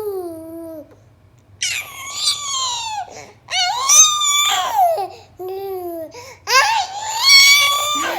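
A baby screeching: a short falling coo, then three loud, high-pitched screeches of a second or more each, with a shorter, lower call between the last two.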